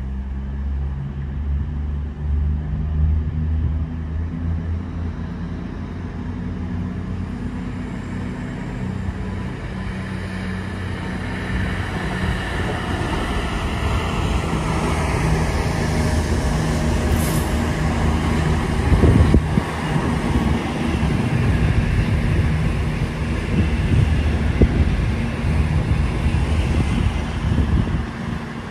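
CrossCountry Voyager diesel-electric multiple unit passing at close range, its underfloor diesel engines running with a steady hum that grows louder as the train goes by. A brief high hiss comes about two-thirds of the way through, and wheel knocks can be heard on the rails.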